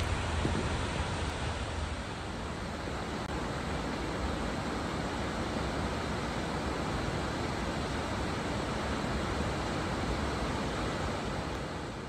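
Waterfall and cascades rushing: a steady roar of falling water, with wind rumbling on the microphone for the first couple of seconds.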